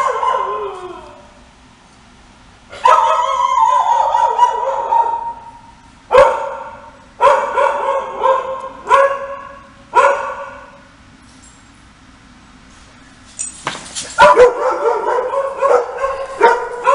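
Dogs barking: single barks and short runs of barks, then a few seconds' lull, then dense overlapping barking from many dogs at once near the end. A faint steady low hum runs underneath.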